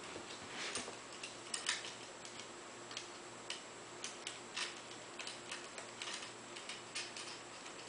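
Light, irregular clicks and taps, a few every second, from a small tool and the laptop's plastic parts as the screen wires are worked into place.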